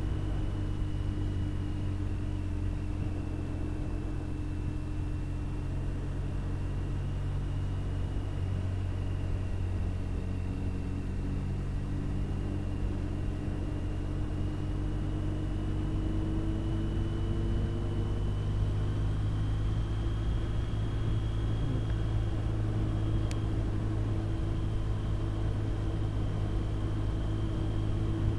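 Touring motorcycle running at a steady cruise, engine hum mixed with wind and road noise as heard from the rider's seat. The engine note climbs slowly and grows a little louder past the middle as the bike gathers speed.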